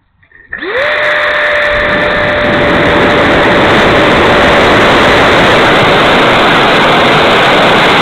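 The 70mm electric ducted fan of an E-flite F-16 model jet spools up quickly about half a second in for a hand launch. It then runs at a steady whine over a loud rush of air as the plane flies.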